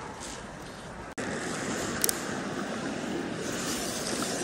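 Steady rush of shallow creek water flowing, which gets louder after an abrupt cut about a second in. A single sharp click sounds about two seconds in.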